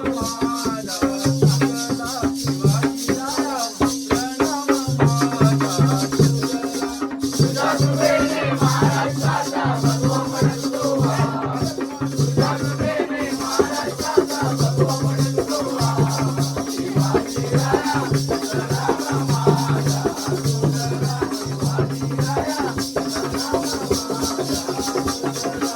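Jakhadi folk music: a constant rattling shaker beat and a repeating low drum pattern over a held drone, with voices singing or calling over it.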